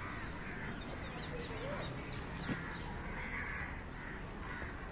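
Crows cawing several times, with small birds giving quick high chirps in the first half, over a steady outdoor background hum.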